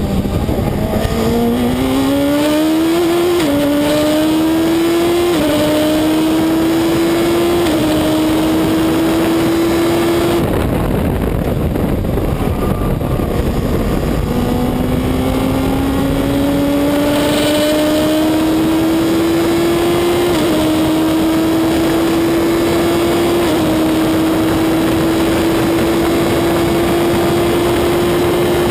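Reynard Inverter's Suzuki Hayabusa motorcycle engine heard from the cockpit at racing speed, accelerating through the gears with quick upshifts about every two seconds. About ten seconds in the driver lifts off and the note fades for a corner, then it pulls again with two more upshifts and holds high revs to the end.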